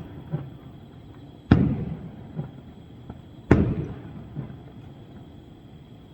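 Aerial fireworks shells bursting: two loud booms about two seconds apart, each trailing off, with fainter pops between them.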